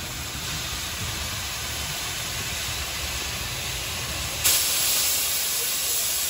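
Steam hissing steadily from the front of BR Standard Class 2 2-6-0 steam locomotive 78018, escaping low by the cylinders. The hiss turns louder about four and a half seconds in.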